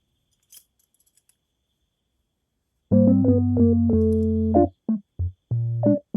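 Background music: after near silence broken by a few faint clicks, electric-piano-like keyboard chords come in about three seconds in and play short held chords to the end.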